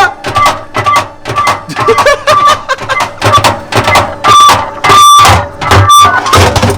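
Battery megaphone tumbling in a spinning washing-machine drum, knocking irregularly against the drum while its speaker keeps letting out broken, choppy blips of tone, a few held briefly. The machine's low hum runs underneath.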